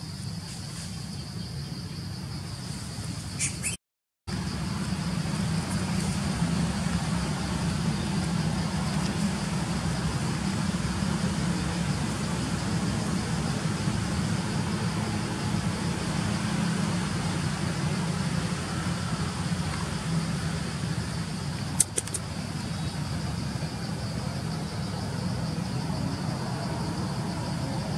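Steady outdoor ambience: a low rumble under a steady high insect drone. It is broken by a brief gap of silence about four seconds in, and a couple of faint clicks come a little before the end.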